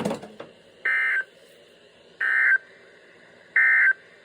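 Emergency Alert System end-of-message signal: three short bursts of SAME digital data tones, about a second apart, closing a severe thunderstorm warning broadcast. A brief crackle comes just before them.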